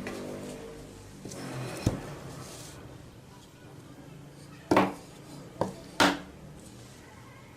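Workshop handling sounds: a fading hum at the start, then a few sharp knocks and clatters, as of tools or wooden pieces being knocked or set down. Three of these come close together in the second half.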